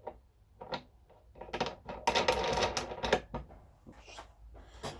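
Small hard objects being handled, with scattered clicks and a burst of metallic clinking and clattering about two to three seconds in.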